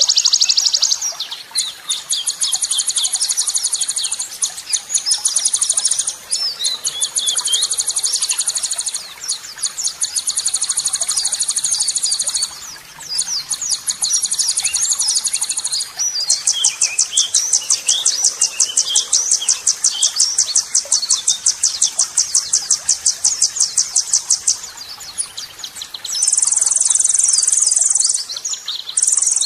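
Rapid, high-pitched songbird trills in runs of a few seconds with short breaks, one long run of about nine seconds in the second half. These are harsh 'tembakan' phrases of small-bird (burcil) song, played as master material for white-rumped shamas.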